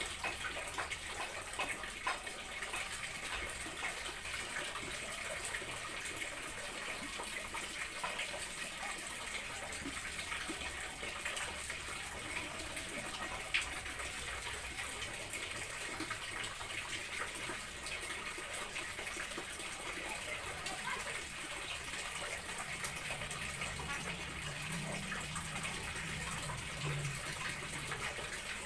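Water running steadily from a tap during a dog bath, with small splashes and ticks over it. A low hum comes in for a few seconds before the end.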